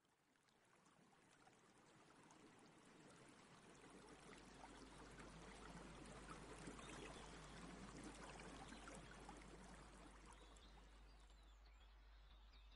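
Faint running water, like a stream, fading in over the first few seconds and then holding steady. A few bird chirps start near the end.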